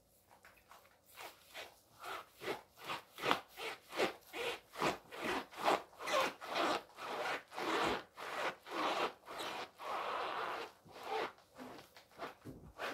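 Sole of a fur slide grinding a crushed apple back and forth against a cutting board: a run of rasping strokes, about two a second, starting about a second in and easing off near the end.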